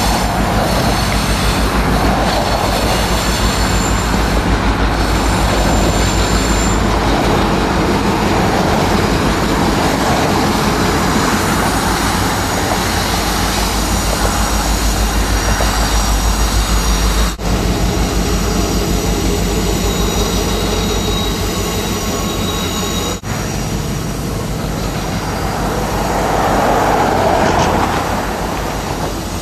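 Diesel-hauled passenger train rolling past on a curve: the locomotive's engine runs with a low pulsing, then the passenger cars roll by with thin, steady squealing from wheel flanges on the curved track. The sound cuts abruptly twice in the second half.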